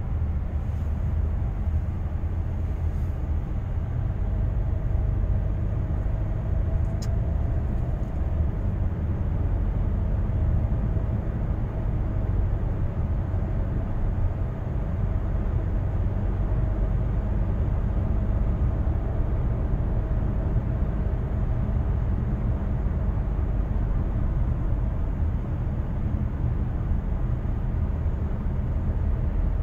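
Cabin driving noise of a Hyundai Staria Lounge 2.2 diesel minivan cruising on a motorway: a steady low rumble that stays even throughout.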